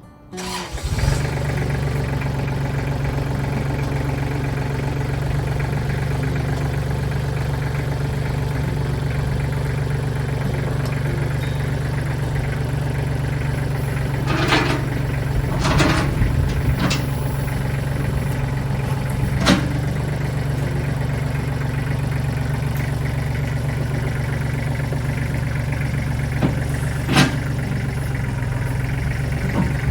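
A machine's engine comes in about a second in and runs steadily at an even idle, low-pitched. A few short metallic clanks sound over it about halfway through, with one more near the end.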